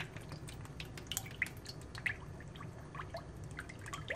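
Vegetable oil pouring in a thin stream from a plastic jug into an empty ceramic-coated frying pan, a soft trickle with many small scattered plinks and drips.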